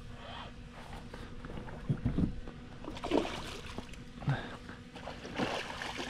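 Scattered short splashes and knocks around a fishing kayak as a small hooked snook is fought up to the boat.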